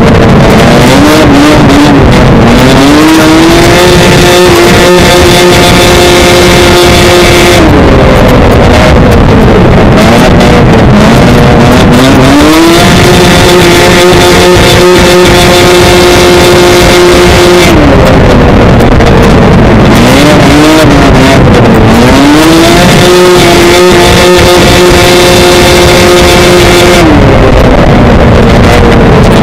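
Ice oval racing snowmobile's two-stroke engine at race speed, heard from on board with rushing wind: three times the engine pitch climbs to a steady high scream, holds for several seconds, then drops, as the throttle is held down the straights and eased for the turns.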